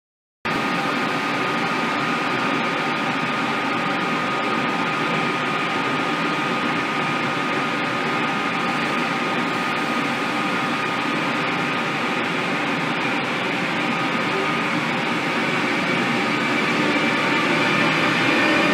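ÖBB class 1216 Taurus electric locomotive running with a steady electrical whine over a hum of blowers, starting abruptly about half a second in. Over the last few seconds it grows louder and higher tones rise in pitch as it draws nearer and gathers speed.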